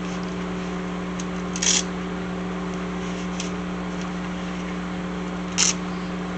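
A steady machine hum with a few even tones, like a fan or motor running, with two brief high hisses or scrapes about a second and a half in and again near the end.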